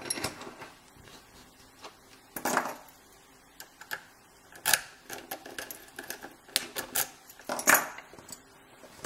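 Irregular metallic clicks and taps from a euro cylinder lock being handled and set in a small bench vise, with a few louder knocks.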